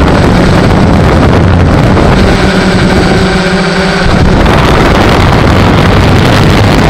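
Multirotor drone's motors and propellers running steadily, recorded by its onboard camera with wind buffeting the microphone. The motor tone changes for about two seconds in the middle, then settles back.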